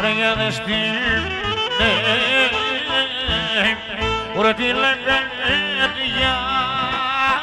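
Greek folk song played live: a clarinet melody, with a male singer's ornamented, wavering voice coming in about two seconds in, over keyboard accompaniment.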